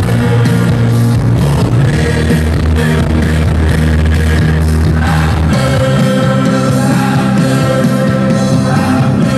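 Loud music with singing, played with a steady heavy bass line.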